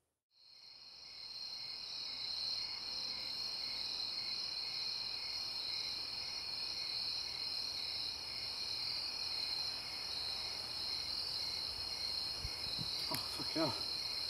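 Crickets chirping in a steady, shrill, even trill, fading in over the first two seconds. A short falling voice-like sound comes near the end.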